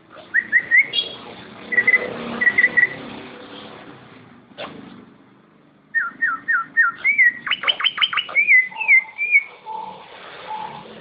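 Cucak ijo (green leafbird) singing loud clear whistled phrases in bursts. After a short pause, a run of quick down-slurred whistles leads into rapid sweeping notes, followed by lower whistles.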